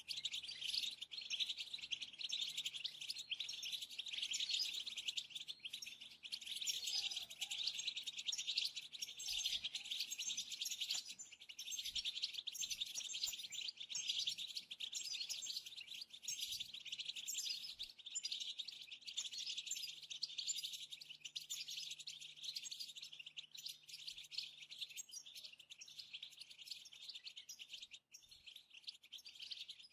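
A flock of European goldfinches twittering, many quick chirps overlapping in a continuous chatter. This is the goldfinch's 'batbata' twitter.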